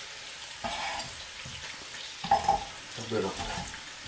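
Food frying in a pan with a steady sizzle, and a brief louder sound about two seconds in.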